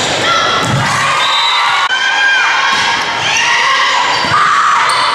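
Spectators and players shouting and cheering during a volleyball rally, with the ball being struck, the clearest hit about two seconds in.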